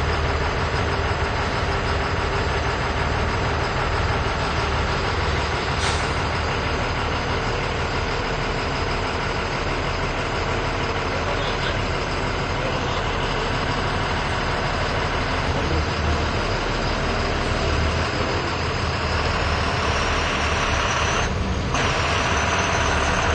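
Diesel engine of a large sleeper coach idling steadily.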